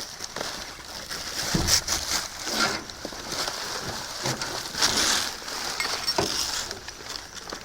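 Rummaging through discarded goods in a dumpster: plastic rustling, with irregular clinks and knocks as items are handled and moved.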